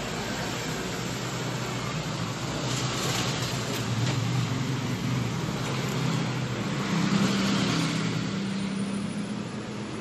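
Steady background road-vehicle noise with a low rumble, swelling a little around four seconds in and again near seven seconds in.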